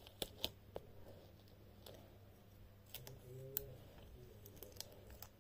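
Faint, scattered clicks and taps of hands working a sticker sheet onto small plastic toy jump poles, over a steady low hum.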